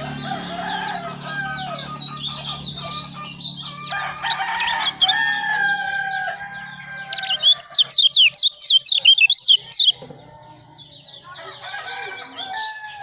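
Kecial lombok (white-eye) song: rapid, high chirps and trills repeated almost without pause, loudest from about the middle of the clip. A rooster crows in a long, slightly falling call about five seconds in, under a low steady hum that stops a little after.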